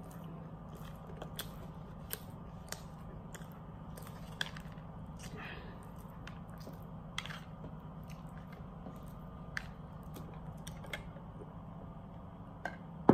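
A person chewing a mouthful of fried chicken burger with the mouth closed: soft, scattered clicks and smacks, over a steady low hum.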